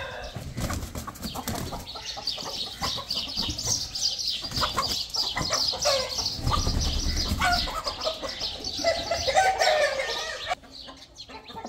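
Aseel chickens flapping their wings in a flurry of wingbeats, with squawks and clucks toward the end.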